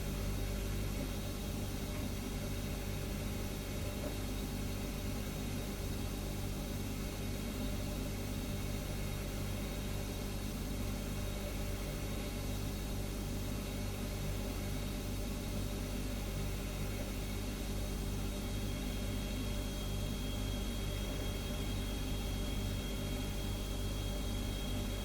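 Refrigerator humming steadily: a low, even hum with a light hiss over it. A faint high whine joins about three-quarters of the way through.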